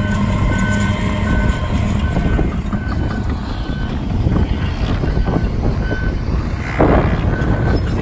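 Diesel heavy construction machinery running, with a back-up alarm beeping about every three-quarters of a second. A brief louder rush of noise comes near the end.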